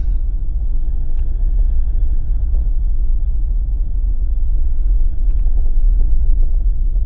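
Steady low rumble of road and engine noise inside a Jeep's cabin while driving, with a faint click about a second in.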